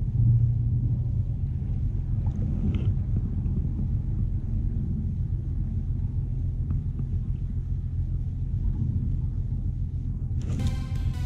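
A steady low rumble, most likely wind on the microphone, while a lure is reeled in slowly; background music comes in near the end.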